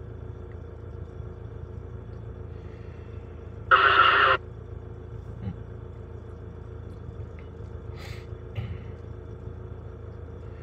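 Steady low rumble of heavy diesel engines idling and working, heard from inside a truck cab. About four seconds in, a CB radio gives one brief burst of noise lasting under a second.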